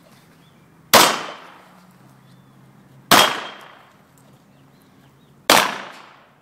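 Three pistol shots, about two and a half seconds apart, each trailing off in a short echo.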